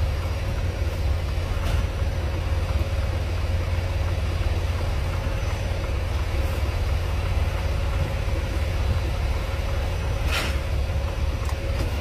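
Semi-truck's diesel engine running at low speed with a steady low rumble and a faint steady hum as the tractor backs under a trailer to couple. A brief sharp noise about ten seconds in.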